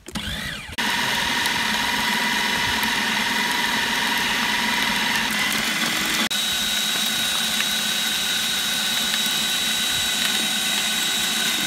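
Electric food processor motor running at speed with a steady whine. It starts abruptly under a second in, and its pitch shifts after a brief dip about six seconds in.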